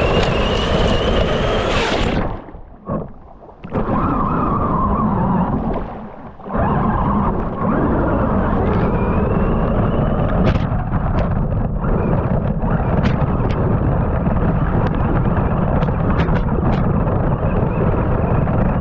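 Electric RC car driven hard over gravel and pebbles, heard up close from on board: a dense rush of tyres churning stones under the motor's whine, which rises in pitch at times. It cuts out briefly twice in the first few seconds as the throttle comes off, and stones tick sharply against the chassis.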